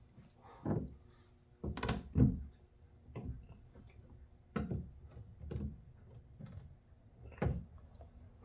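Irregular clunks and knocks of handling under a car during an oil drain, about eight of them, the loudest about two seconds in.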